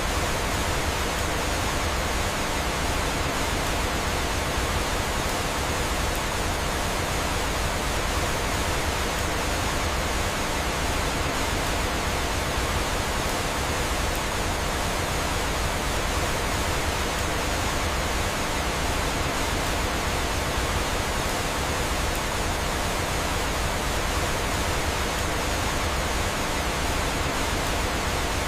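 Steady rushing of falling water from a waterfall: an even, unbroken hiss with no pauses or changes.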